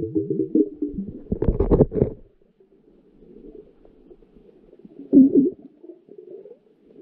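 Muffled knocks and scraping of a GoPro's underwater housing being jostled on the reef. There is a loud cluster of thuds between one and two seconds in and another knock about five seconds in, over a faint low underwater rumble. A pulsing tone fades out in the first second.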